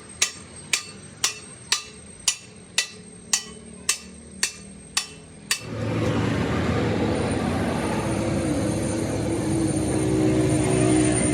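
Sharp ringing metal strikes, about two a second, of the kind hammer blows on steel make; after about five and a half seconds the strikes stop and a steady machine noise with a constant high whine starts.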